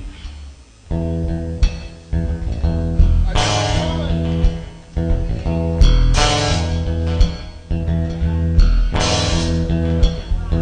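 Live rock band playing: guitar and bass guitar holding sustained chords with drums and cymbal hits, starting about a second in after a brief lull.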